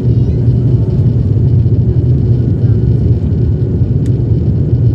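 Propeller airliner's engines running with a steady low drone, heard from inside the passenger cabin.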